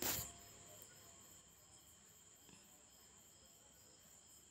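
Faint, steady chirping of crickets, pulsing about four times a second, with a short knock right at the start.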